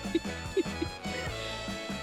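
Background music with a repeating bass line and held notes.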